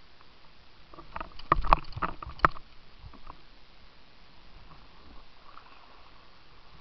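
Kayak paddling close to the microphone: a quick cluster of sharp water splashes and knocks lasting about a second and a half, starting about a second in, then quieter.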